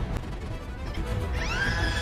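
Background music with heavy bass; about a second and a half in, a high held note sweeps up into it.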